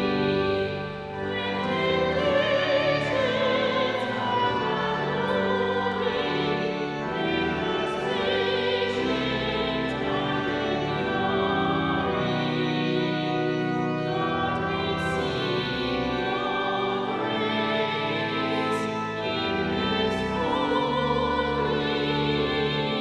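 Sung church music: a voice with wide vibrato holding long notes over sustained accompanying chords.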